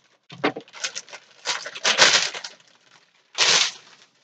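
Black plastic bag rustling and crinkling in about five short bursts with quiet gaps, as it is handled and pulled open.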